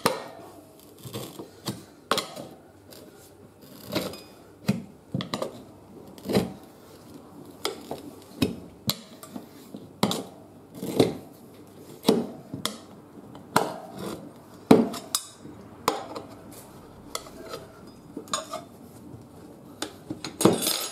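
Steel tyre levers clinking and scraping against a spoked motorcycle wheel rim as the tyre bead is prised off in small bites, with irregular sharp metallic knocks about once a second.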